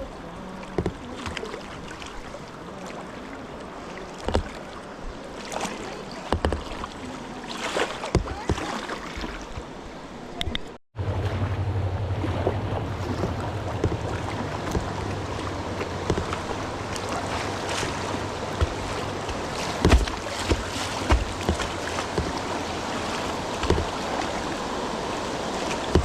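Kayak paddling on a river: water rushing around the boat, with paddle strokes splashing and dripping at irregular intervals. About eleven seconds in the sound drops out for an instant and comes back louder, with a steady low hum under the water noise.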